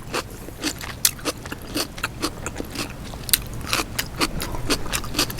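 Close-miked crunching and chewing of raw cucumber: a run of sharp, irregular crunches, a few a second.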